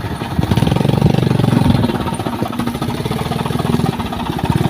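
Heavy diesel engine of earth-moving machinery running under load, with a fast, even chugging. It picks up about half a second in and keeps working hard.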